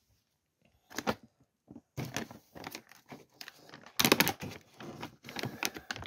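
Aluminium foil crinkling and rustling as it is handled, in irregular bursts after a near-silent first second, with the loudest cluster about four seconds in.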